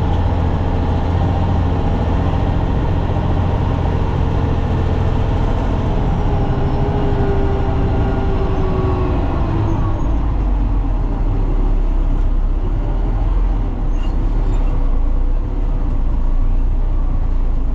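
Truck engine running steadily, heard from inside the cab while driving. Its deep hum drops lower about ten seconds in as the engine speed falls.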